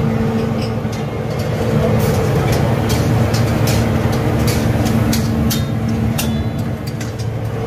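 Restaurant kitchen noise while karahis cook: a steady low hum runs throughout, and from about two seconds in there is a run of sharp clicks and metal clatter.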